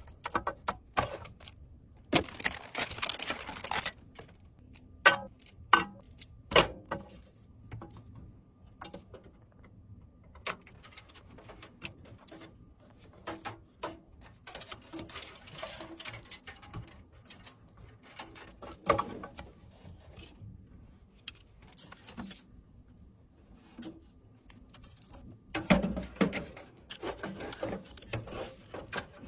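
Computer parts being handled during a PC build: scattered clicks, taps and knocks with stretches of rustling, and a louder run of knocks near the end.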